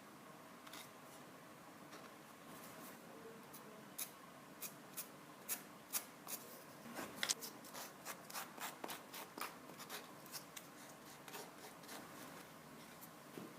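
Quiet hand work on the axe or its wooden handle: a run of light, irregular clicks and scratches, starting about four seconds in and thinning out near the end, over low room tone.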